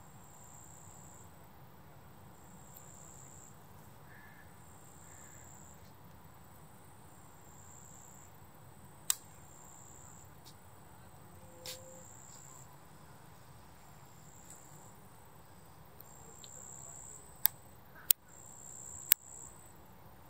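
An insect chirping high and regularly, a short cricket-like chirp about every second and a half. One sharp click sounds about halfway through and three more come near the end.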